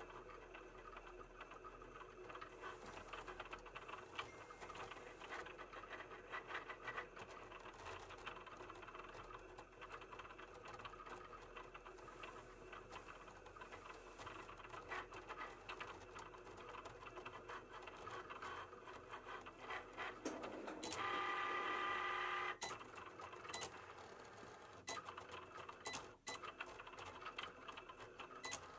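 Cricut cutting machine running a Print Then Cut job: its motors whir and tick as the carriage travels and the mat shifts. About two-thirds of the way through there is a louder, higher motor whine for about two seconds.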